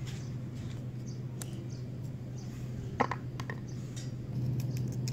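Peeled garlic cloves being handled on a plate: scattered small clicks, with one sharper tap about three seconds in as a clove is set down. A steady low hum runs underneath.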